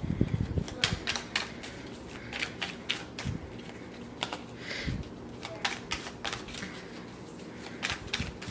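A deck of oracle cards being shuffled by hand: a run of quick, irregular card clicks, with a couple of soft thuds along the way.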